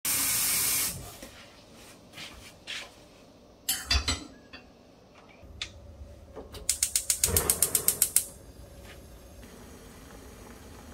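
Tap water runs into a steel saucepan at the sink for about a second. A few knocks follow as the pot is handled and set on the gas hob. Then the gas burner's igniter clicks rapidly, about ten clicks a second for a second and a half, before a faint steady burner and boiling hiss.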